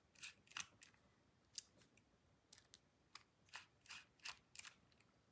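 Faint, irregular metal clicks of a small screwdriver turning and reseating in the body screws of a folding knife as they are driven in.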